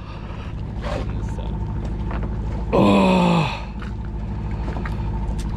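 Steady low mechanical hum of the boat's machinery, with a man's drawn-out shout falling in pitch about three seconds in.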